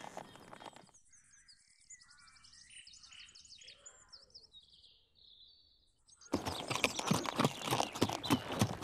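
A horse's hoofbeats, then a quieter stretch of small birds chirping, then a horse's hoofbeats trotting on turf, loud and close, which start abruptly about six seconds in.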